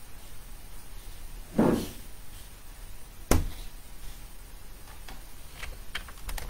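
A dull thump about one and a half seconds in, then a sharp click a couple of seconds later, and a few light clicks near the end: handling noise as someone deals with a computer that is about to shut off.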